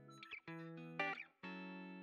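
Background guitar music: a few held notes, each changing to the next about every half second.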